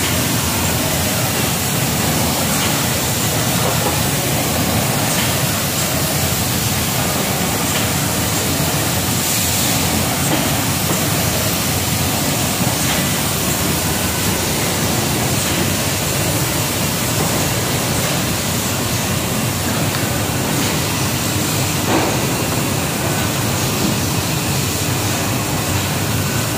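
Automatic case-making machine with a Yamaha robotic arm running: a steady mechanical noise with a few faint clicks, one a little louder about 22 seconds in.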